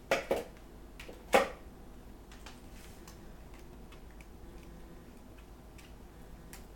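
A spatula knocking against a plastic Cuisinart food-processor bowl a few times, the loudest knock about a second and a half in, then light scraping and ticking as hummus is scraped out of the bowl.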